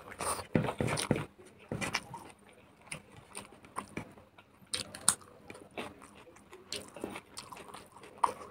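Close-miked chewing and mouth smacking while eating smoked pork and rice by hand: irregular wet clicks and smacks, busiest in the first two seconds.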